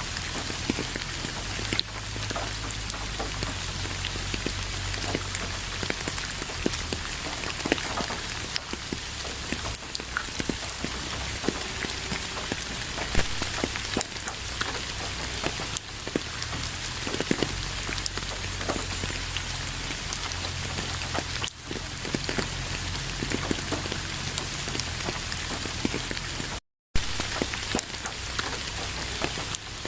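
Steady rain falling, a dense patter of drops hitting surfaces, with a split-second gap of silence near the end.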